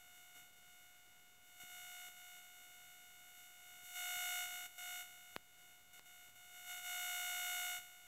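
Near silence, broken by a faint steady electronic beep-like tone with overtones that comes and goes: briefly near 2 seconds, for about half a second around 4 seconds, and for about a second near the end, with a single faint click in between.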